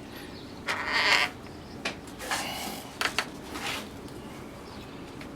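Straining and scraping as a tight oil filter is forced counterclockwise by hand through a rag, in two rough bursts with a few sharp clicks after the second.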